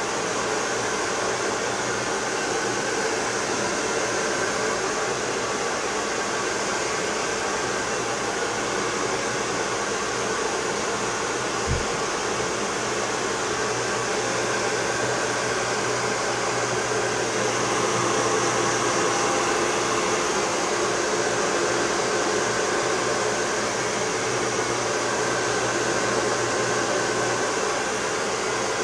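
Handheld hair dryer running steadily while drying long wet hair: a constant rush of air over a low hum.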